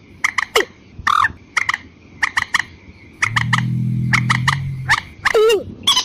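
Bird-lure recording of a watercock and moorhen duet: runs of short, sharp call notes repeated at an uneven pace, with a low droning call for about two seconds in the middle.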